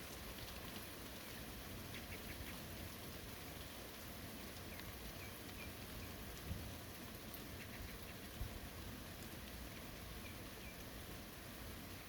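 Steady rain falling, a soft even hiss. Faint short chirps come in small clusters, and two dull thumps land about six and a half and eight and a half seconds in.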